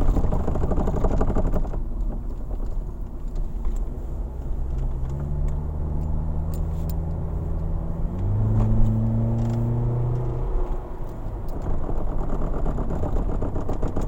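Inside a 2006 Toyota Tarago on the move: steady road and running noise. From about a third of the way in a humming tone rises slowly in pitch, jumps louder and higher a little past halfway, then stops at about three-quarters.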